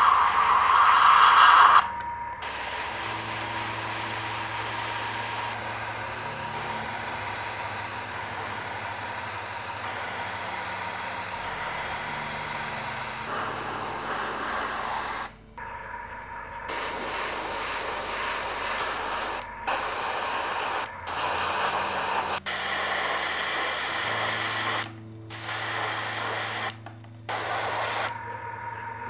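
Airbrush spraying paint with a steady hiss, loudest in a burst at the start, broken several times by short drop-outs where the spray stops.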